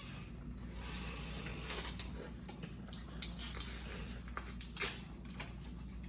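Boiled crawfish being cracked and peeled by hand: irregular crackles and clicks of shells breaking, with light clatter of shells and dishes.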